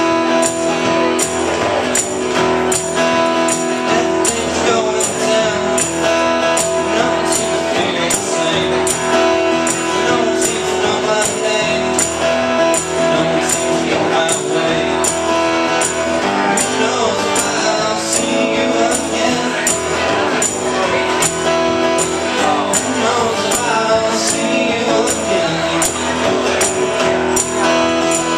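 Two acoustic guitars strummed live as a duo, steady and unbroken, with a regular beat of sharp bright accents a little under twice a second.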